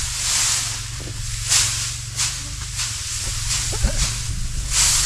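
Dry hay swishing and rustling as forkfuls are lifted and tossed onto a haycock with pitchforks, about four separate swishes, the loudest about a second and a half in and near the end.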